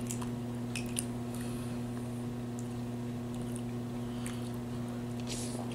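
Scattered faint snaps and wet squishing of boiled crab legs and shellfish being cracked and picked apart by hand, over a steady low electrical hum.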